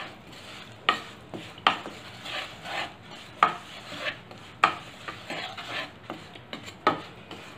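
A wooden spatula stirring and scraping lumps of desi jaggery around in oil in a non-stick kadai as the jaggery melts, with irregular sharp knocks of the spatula against the pan.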